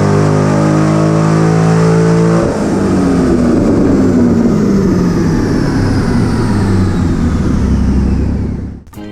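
Cammed Corvette C6 V8 on a chassis dyno, held at high revs at full throttle, then lifting off about two and a half seconds in and winding down with a steadily falling pitch. The sound cuts off suddenly just before the end.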